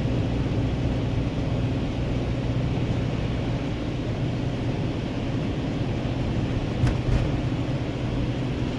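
Car engine pulling uphill in third gear, a steady low hum heard from inside the cabin, with tyre noise on the wet road. Two short knocks come about 7 seconds in.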